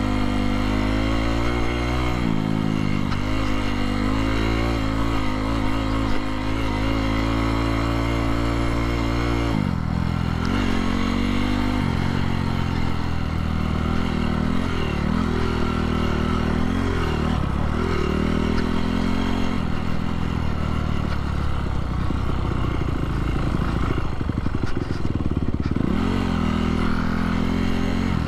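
Honda CRF250R's single-cylinder four-stroke engine running under way on a trail ride, its pitch rising and falling as the throttle is opened and closed. There is a brief drop in engine speed about ten seconds in, then it picks back up.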